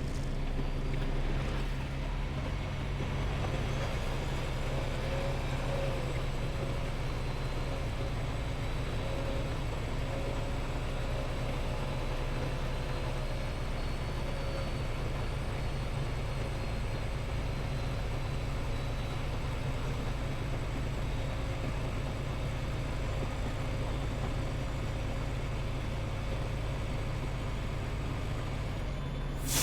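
Semi truck's engine running with a steady, constant low drone.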